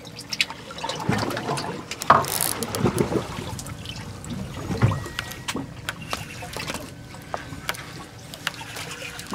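Seawater lapping and splashing against a boat's hull, with scattered sharp clicks and knocks and a louder surge about two seconds in.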